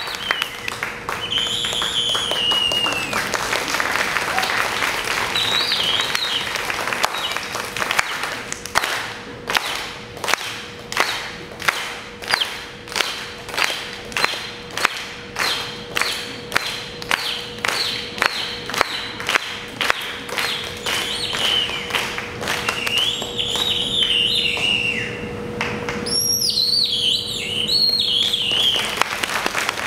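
Audience applauding, the clapping falling into a steady rhythm of about two claps a second after about eight seconds, then loosening again near the end. Whistles from the crowd rise and fall over the clapping at several points.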